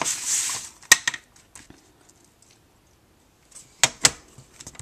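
Cardstock handled on a sliding paper trimmer: a short rustle of the sheet sliding at the start, then sharp plastic clicks from the trimmer, a pair about a second in and another pair near the end.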